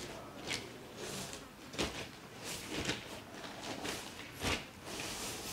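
Scattered short rustles and light knocks, about seven in five seconds, from a plastic scoop and bowl and the plastic sheeting as liquid dye is ladled onto tied fabric; the two loudest knocks come about two seconds in and near the end.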